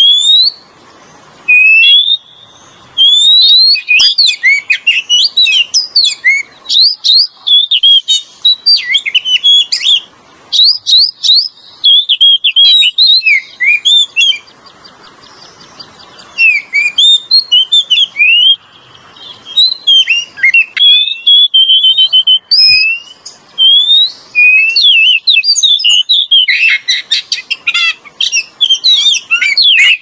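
Oriental magpie-robin (kacer) singing: phrases of quick, sweet whistled notes and chirps broken by short pauses, the notes packed most densely near the end. This is the kind of recording used as a lure (pikat) call.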